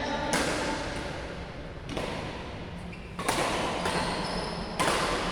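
Badminton rackets striking a shuttlecock in a rally, four sharp hits about a second and a half apart, each echoing through a large sports hall.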